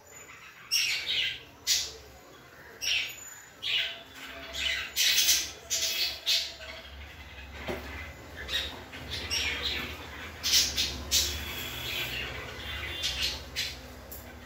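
Small plastic toy spoon scraping and stirring in a plastic toy bowl: an irregular run of short, squeaky scrapes, about one or two a second, over a steady low hum.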